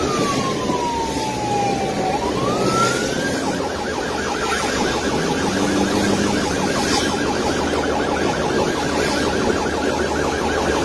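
Police car siren from inside the pursuing car: a slow falling wail, then a quick rise about three seconds in that switches into a rapid warbling yelp. Underneath are engine and rain noise, with windshield wiper swishes about every two seconds.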